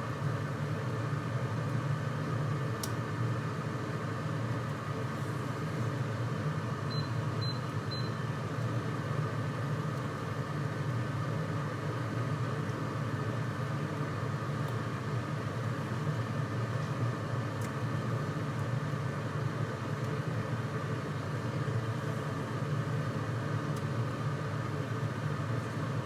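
Steady low hum of a running kitchen appliance motor or fan, with three short high beeps about seven seconds in.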